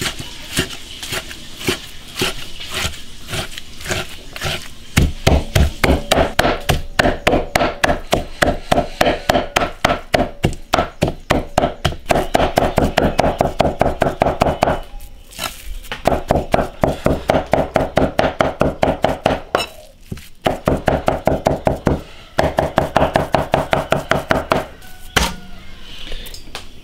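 Cleaver chopping lean pork into mince on a thick wooden chopping block: a fast, steady run of thuds. The strokes are lighter at first and heavier from about five seconds in, with two brief pauses.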